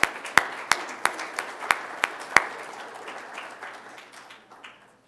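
Audience applauding, with one person's claps standing out loud and close at about three a second. Those claps stop about halfway through and the rest of the applause fades away near the end.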